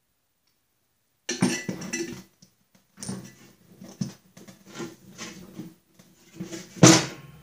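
Metal clinking, knocking and scraping as a rebuilt spindle assembly is slipped up from below into its housing on a steel Snapper mower deck, starting after about a second of silence, with one louder clank near the end.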